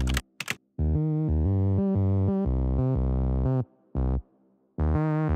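Background electronic music: held synthesizer chords in short blocks, breaking off briefly twice.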